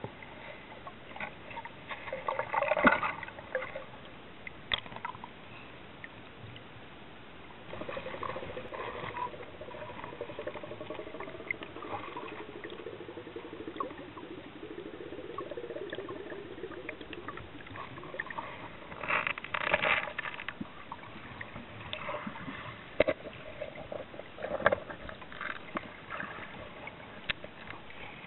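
Underwater sound picked up by a submerged handheld camera: irregular crackling and bubbling bursts from water moving around the camera, loudest twice, near the start and about two-thirds of the way through. A faint wavering hum runs for several seconds in the middle.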